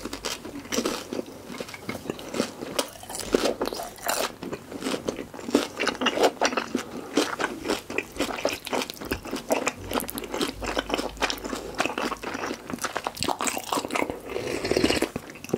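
Close-miked chewing of crispy battered fried pork (guobaorou): a dense run of quick, sharp crunches. Near the end there is a sip of broth from a spoon.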